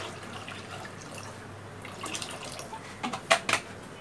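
Water poured from a plastic bottle into a steel pot of mashed red lentils, splashing and trickling into the thick dal. A few sharp knocks come about three seconds in.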